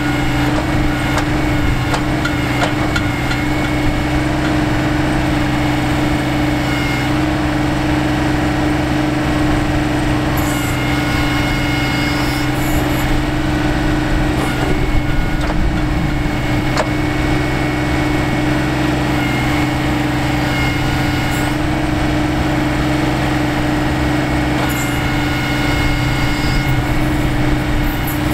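John Deere 2025R compact tractor's three-cylinder diesel engine running steadily while working the 270A backhoe as it digs, with a higher thin tone that comes and goes and a few faint knocks.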